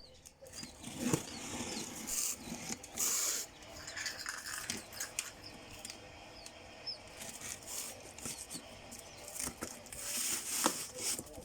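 Irregular rustling and a few light knocks, with faint short bird chirps in the background.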